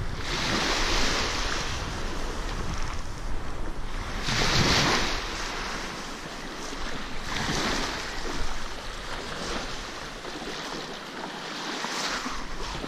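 Small waves washing up and draining back over a pebble beach, swelling in a wash every few seconds, with wind buffeting the microphone.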